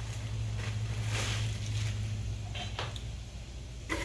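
Rustling of clothing and its packaging as a dress is unwrapped and shaken out, a few soft swishes with a couple of small clicks near the end, over a steady low hum.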